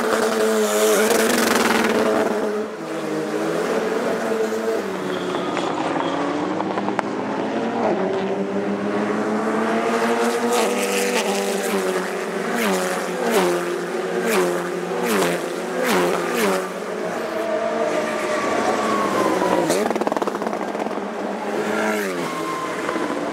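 Turbocharged TC2000 touring car engines running hard, the revs climbing and falling back at each gear change, several times in a row.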